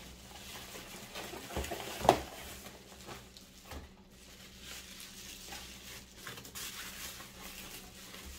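Plastic packaging crinkling and rustling as small bagged hose fittings are handled, with one sharp click about two seconds in.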